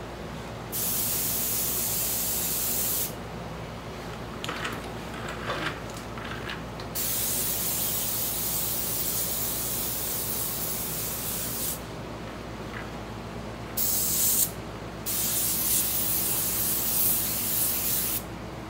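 An airbrush spraying paint in four bursts of air hiss, the second and longest about five seconds, the third under a second. A steady low hum runs underneath.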